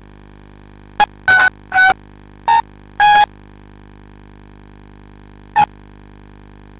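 Six short, loud pitched notes played through a public-address system, five in a quick run and one a couple of seconds later, over a steady electrical hum from the PA.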